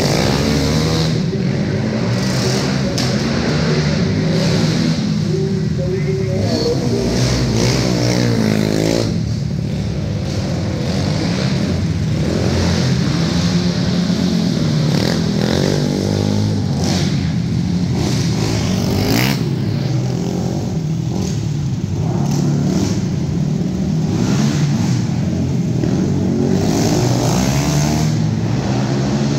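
Several racing quads with single-cylinder four-stroke 450 engines lapping a dirt oval together, engines revving up and backing off through the turns so that their pitches rise and fall over one another.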